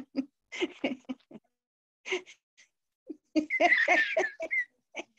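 People laughing over a video call, in short, choppy bursts, with a few words mixed in.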